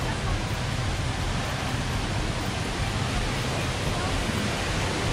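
Steady rushing hiss of the Rain Vortex, a 40-metre indoor waterfall, falling without pause, with a crowd of visitors' voices faintly mixed in.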